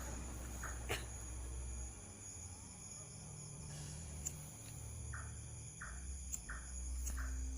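Crickets trilling steadily and high-pitched. Near the end a short chirp repeats four times, about two-thirds of a second apart, and a single click sounds about a second in.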